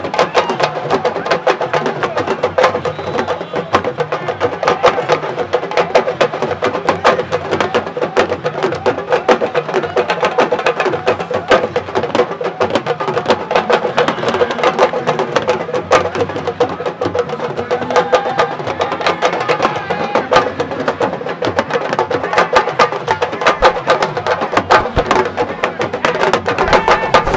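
Sabar drums played in a fast, dense rhythm of sharp strokes, with voices singing or chanting over the drumming.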